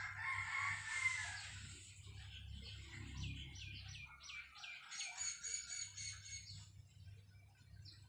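A rooster crowing in the first second and a half, then a small bird calling a quick run of about seven descending whistled notes, followed by a longer steady high note.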